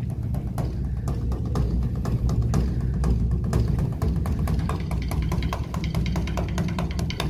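Beopgo, the large Korean Buddhist dharma drum, beaten with sticks in a fast rolling rhythm as part of the temple's evening service. A deep continuous boom runs under rapid stick strikes, which grow busier about four seconds in.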